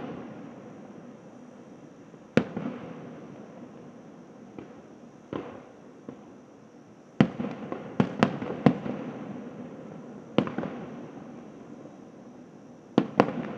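Aerial fireworks shells bursting: about ten sharp bangs at irregular intervals, with a quick cluster of four around the middle and a close pair near the end, each trailing off in a rolling echo.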